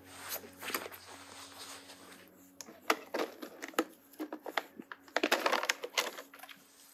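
Crunching and crackling with a run of sharp clicks, as of something being crushed or broken, busiest about five to six seconds in.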